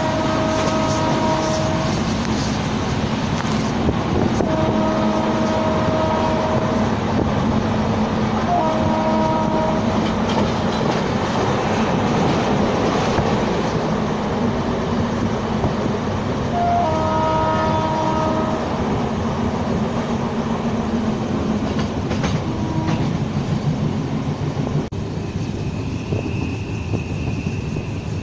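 Passenger train running at speed, heard from inside a coach: a steady rumble and rail clatter. A multi-note locomotive horn sounds long blasts near the start, twice more within the first ten seconds and again past halfway, with a short toot a little later.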